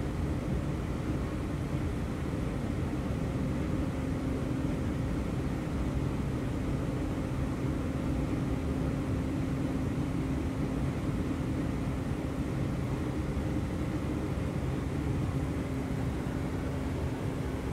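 Running noise of an EG2Tv Ivolga electric train heard from inside the carriage: a steady rumble of the wheels on the track with a steady low hum.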